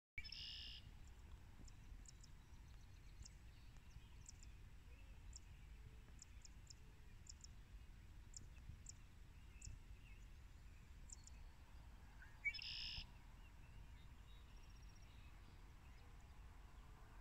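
Quiet open-country ambience: faint, thin, high chirps from birds scattered throughout, and two short, louder, harsh bird calls, one right at the start and one about twelve seconds in, over a low steady rumble.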